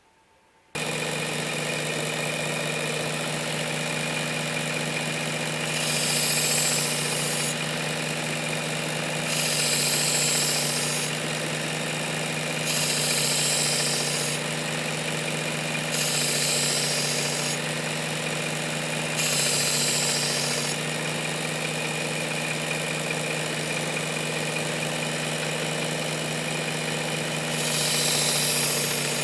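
Work Sharp Ken Onion Edition belt knife sharpener switching on about a second in and running with a steady motor hum. A pocket knife blade is drawn across its coarse X65 abrasive belt six times, each pass a hiss of about a second and a half.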